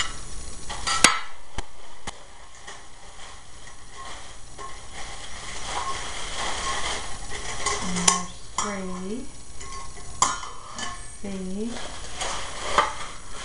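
Plastic wrapping crinkling as it is handled and pulled off metal camping pots and cups, with a sharp clink about a second in and a few more knocks of the cookware later on.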